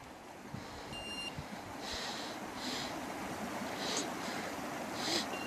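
Faint crunching steps in snow, a few soft irregular crunches, with a short high electronic beep about a second in and another at the end.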